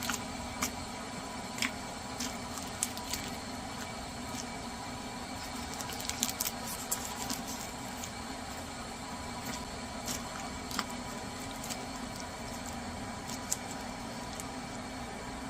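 Close-miked eating sounds: chewing with scattered sharp mouth clicks, busiest about six to seven seconds in, over a steady background hum.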